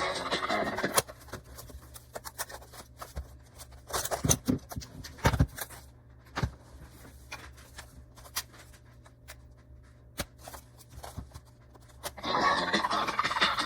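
Scattered clicks and short rustles of something being handled, loudest in a cluster about four to five and a half seconds in. Background music stops about a second in and comes back near the end.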